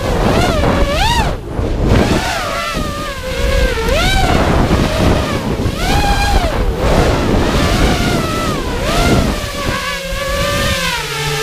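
FPV racing quadcopter's brushless motors (EMAX RS2205 2300KV) and propellers whining, the pitch sweeping up and down again and again as the throttle is punched and eased in freestyle flight, with wind rushing over the onboard camera's microphone.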